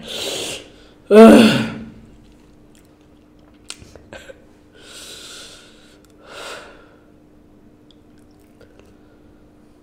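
A man's loud pained cry, falling in pitch, about a second in, followed by hissing breaths and a couple of small mouth clicks: his reaction to the burn of an extremely hot chip.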